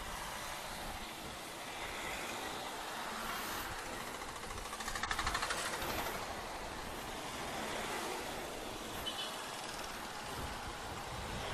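Motorcycle on the move: a steady rush of wind and road noise. About five seconds in there is a short, louder stretch with a fast, pulsing buzz.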